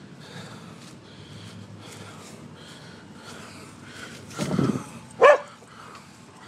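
Dogs barking repeatedly beyond a wooden fence, about two barks a second. Near the end come a short low rough burst and then one loud, sharp bark.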